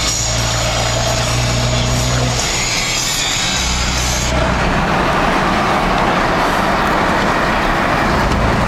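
Dodge pickup's Cummins turbo-diesel engine running steadily while driving, a continuous low engine drone under road noise. About four seconds in, the high hiss drops away and a mid-range rush takes over.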